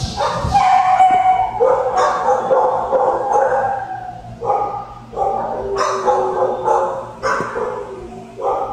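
Several dogs barking and yelping in a shelter kennel, in about five drawn-out, overlapping bouts.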